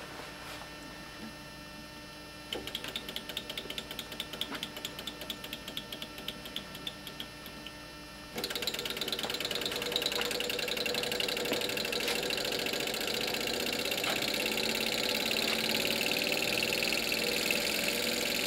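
Small walking-beam Stirling hot air engine running fast, its beam linkages and belt-driven DC generator making a rapid mechanical ticking clatter. About eight seconds in, the sound steps up abruptly to a louder, steady mechanical running with a faint whine.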